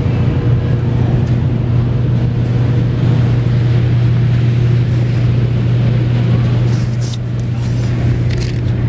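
A steady, loud low-pitched hum over an even background noise, with a few faint ticks near the end.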